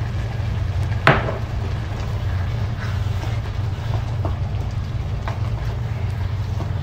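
Wooden spoon stirring ground meat in a frying pan, with one sharp knock about a second in and several lighter clicks of the spoon against the pan, over a steady low hum.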